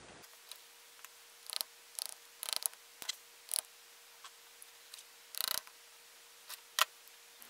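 Scattered sharp clicks, taps and short scrapes of gloved hands handling a tractor power-steering valve body and a hand tool at the bench, one sharp click the loudest near the end. A faint steady hum runs underneath.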